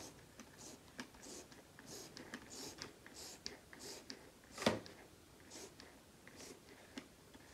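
Faint, soft swishing and scraping of foamy soap being measured into a small plastic measuring cup, recurring every half second or so, with one dull knock a little under five seconds in.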